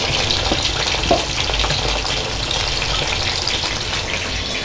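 Cooking oil heating in a non-stick frying pan, sizzling with a fine, steady crackle.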